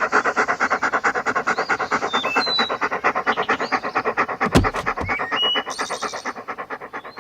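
Fast pulsing background music, about eight even beats a second, with short high chirps over it. A falling swoosh ends in a deep boom about four and a half seconds in.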